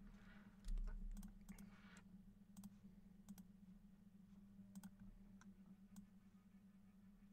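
Quiet room with faint scattered clicks of a computer mouse and keyboard over a low steady hum. A brief rustle and a dull thump come about a second in.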